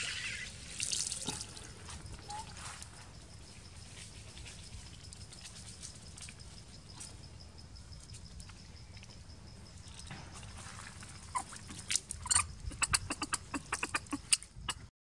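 A homemade PVC-pipe hand water pump being worked, with water sloshing and dripping. Near the end comes a quick run of sharp clacks and knocks.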